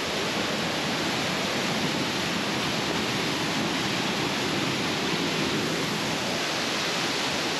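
Steady rush of Flume Brook's water cascading over rocks in the narrow gorge.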